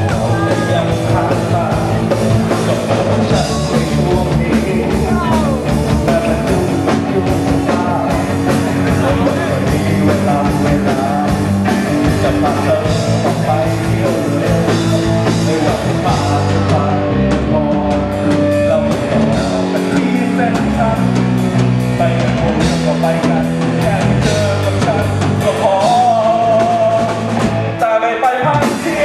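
A loud rock song with a singer over a band, its drum beat running steadily under the vocals.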